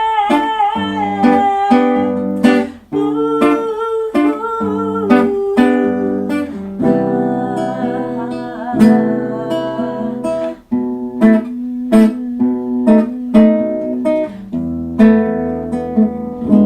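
Acoustic guitar playing an instrumental passage of strummed and picked chords over sustained low bass notes.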